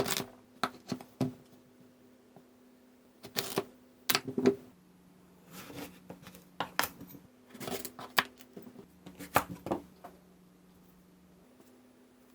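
Kitchen handling sounds: short knocks and clicks in loose clusters, like a knife, squash and utensils set down and moved on a counter or cutting board, over a faint steady hum. They stop a little before the end.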